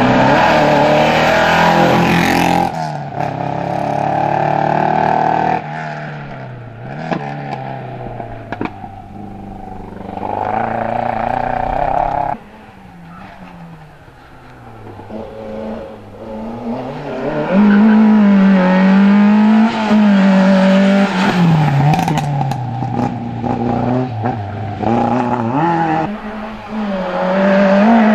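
Peugeot 205 race car's engine revving hard, its note climbing and falling again and again as it accelerates and lifts through tight cone chicanes. The sound breaks off abruptly a few times.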